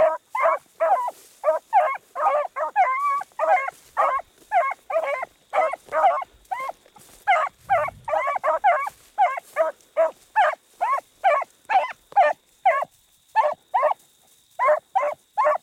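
Beagles baying as they run a rabbit's scent line: short, repeated bays, about two to three a second, with voices overlapping at times and a couple of brief pauses.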